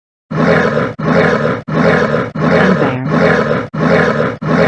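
Bear calling with a rapid run of harsh, throaty calls, one about every two-thirds of a second, beginning just after the start.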